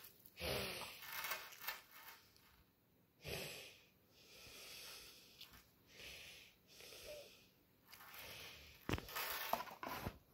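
Faint handling of a gold-plated brass chain necklace and its card tag, with soft breathing close to the microphone. About nine seconds in, a cluster of sharp clicks as the chain links clink onto a granite countertop.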